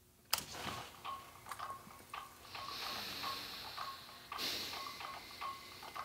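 A single laptop key click, then music leaking thin and tinny from Sony MDR-7506 headphones lying on the bench with the volume knob turned all the way up, heard mostly as a steady ticking beat about three times a second. The sound getting through shows that the new detachable cable and volume knob carry the signal.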